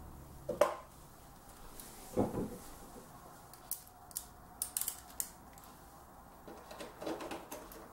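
Small clicks and knocks of screws and expansion-slot covers being handled at the back of a computer case, freeing a slot for a graphics card. There is a sharp knock about half a second in, then scattered clicks, with a quick run of them a little before the middle.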